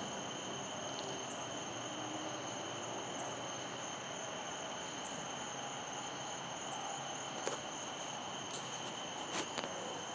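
Steady high-pitched chorus of night insects, with a short higher chirp about every two seconds. There are two sharp clicks in the second half.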